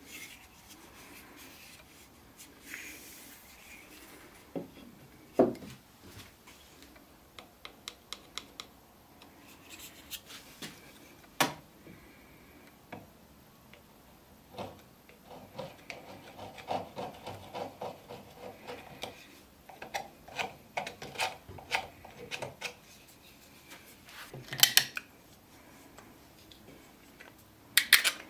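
Snap-off utility knife blade scraped over the old wooden horn of a hand plane, in irregular runs of short scraping strokes. A few sharp clicks are mixed in.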